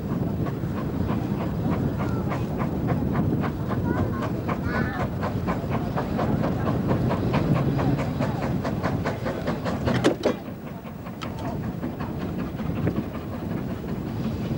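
Small narrow-gauge steam locomotive and its carriages running past, with a quick, even clicking beat of about four a second. Wind rumbles on the microphone. The beat fades after a sharp crack about ten seconds in.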